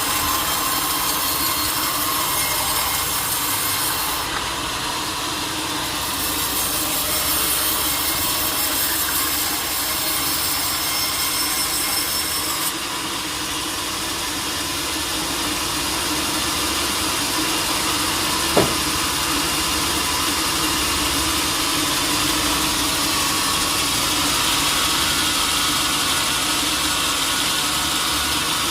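Sawmill saw cutting through a teak log, with its motor running steadily underneath. A single sharp knock comes about two-thirds of the way through.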